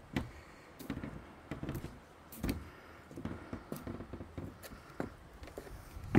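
Footsteps on wooden deck boards: irregular knocks and dull thumps on the planks, with a sharper, louder knock near the end.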